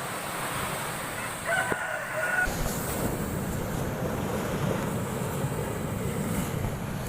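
Heavy storm surf: large waves breaking and washing onto the shore as a steady rush of water that grows louder about two and a half seconds in. A rooster crows briefly about a second and a half in.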